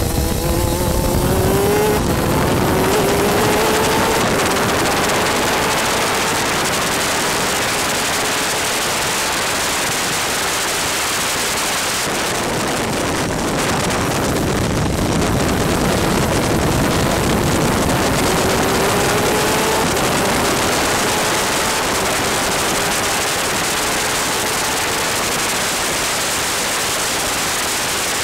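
Superkart's two-stroke engine at full throttle, climbing in pitch as it accelerates through the gears. It is mostly buried under a steady rush of wind and rain noise on the onboard microphone.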